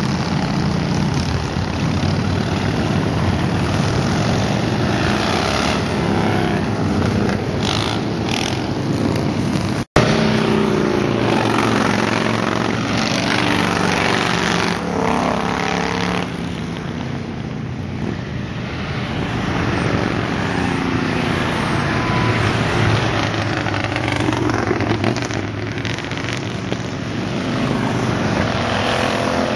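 A procession of heavy touring and cruiser motorcycles riding past, their engines rumbling steadily as one bike follows another. The sound cuts out for an instant about ten seconds in.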